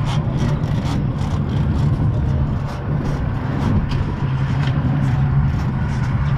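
Outboard engines of an Intrepid 323 center-console boat running at low speed with a steady low drone, with frequent short knocks and slaps over it.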